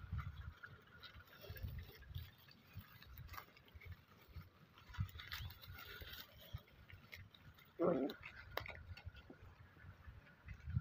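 Dry straw rustling and crackling as small puppies crawl and scramble over it, with low bumps of the phone being handled. One short, louder sound comes about eight seconds in.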